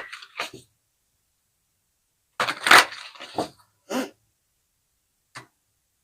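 Tarot cards being shuffled: a brief burst of card riffling and flapping about halfway through, a shorter one after it, and a single snap near the end.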